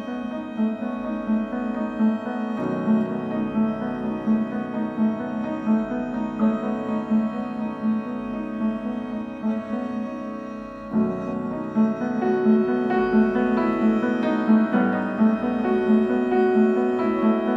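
Instrumental music with a fast, steadily repeated low note under sustained chords. The harmony shifts about three seconds in and again about eleven seconds in. No firework bangs stand out.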